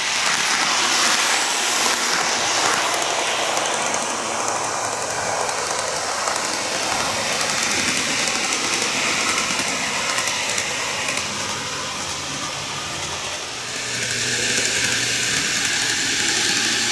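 Greenmax N-gauge Kintetsu 12410 series model train running on plastic track: a steady rolling whirr of its motor and wheels. It goes by close and draws away, and about 14 seconds in it grows louder again.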